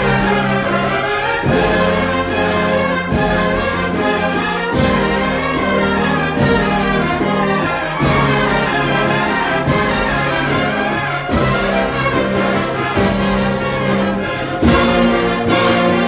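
Brass-led band music, a slow march with held brass chords changing about every second and a half.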